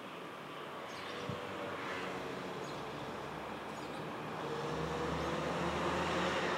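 Street traffic noise, with a vehicle engine growing louder about two thirds of the way through.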